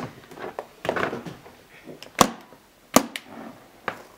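Metal latches of an aluminium briefcase clicking open: two sharp snaps under a second apart, with lighter clicks and knocks of the case being handled around them.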